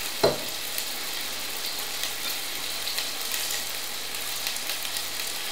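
Chicken thigh pieces searing in olive oil in a frying pan on high heat: a steady sizzle with faint crackles. Just after the start, a brief sound drops in pitch.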